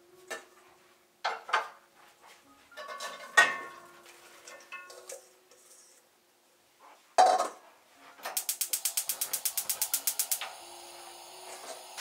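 Pan and steel bowl knocking and clattering as sliced onions are tipped into the pan, loudest about three seconds in. Later a gas hob's igniter ticks rapidly, about nine ticks a second for two seconds, and the burner then settles into a steady hiss.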